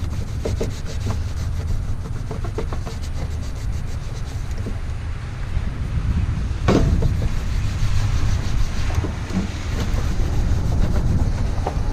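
Rag rubbing and wiping a plastic coolant reservoir, with small clicks and scrapes as it is handled and one sharper knock a little past the middle, over a steady low rumble.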